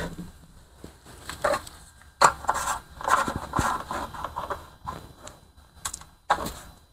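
Hands handling a lawnmower's air filter and its plastic housing: irregular light scrapes, rustles and small clicks with short quiet gaps between them.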